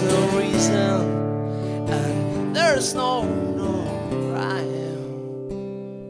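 Acoustic guitar strummed under a harmonica played from a neck rack, the harmonica's held notes wavering and bending. The playing grows quieter toward the end.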